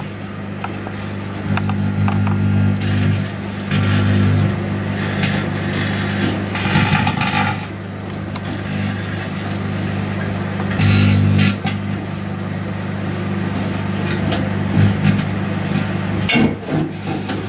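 Microwave oven running with a steady low hum while lithium metal from a lithium-ion battery cell reacts inside, giving several bursts of crackling hiss, with a few sharp clicks near the end.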